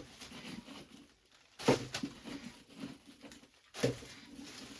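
Potatoes being handled and dropped while bagged for storage: two knocks about two seconds apart, with shuffling and rustling between.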